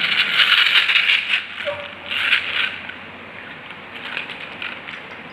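Plastic toy monster truck pushed along by hand, its wheels giving a loud scraping whirr in two spells, then a few lighter clicks as it is handled.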